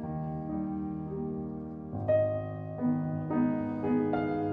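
Background piano music: slow, held chords that grow fuller and louder about two seconds in.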